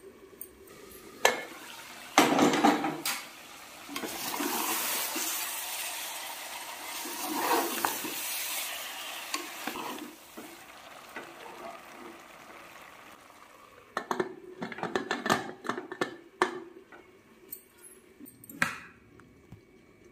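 Chicken and masala sizzling in a pressure cooker, an even hiss through the first half, with a clatter about two seconds in and scattered metal clinks of a spoon stirring against the pot in the second half.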